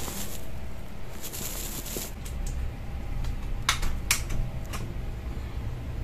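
A few sharp clicks and knocks from a ceiling fan blade being handled at the fan's hub, over a steady low hum.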